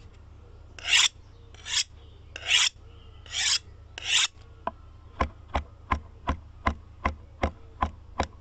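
Five rasping scrapes, then a run of sharp, evenly spaced clicks, about three a second, over a low steady hum.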